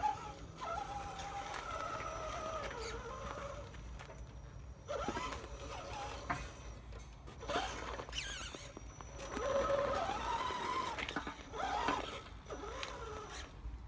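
RC dump truck's electric motor and gears whining, the pitch rising and falling over and over as it speeds up and slows down.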